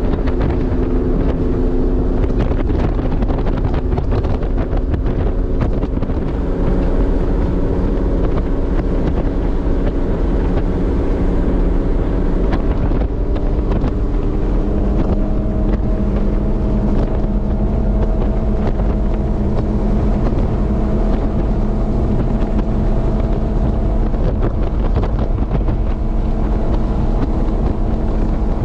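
The twin engines of a 2002 Fountain 35 Lightning powerboat running hard on a top-speed run, accelerating from about 50 to nearly 80 mph, with wind buffeting the microphone. The engine note shifts about halfway through.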